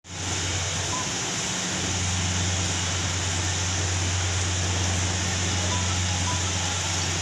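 Steady machinery noise: a constant low hum under an even hiss, with no change in level or pitch.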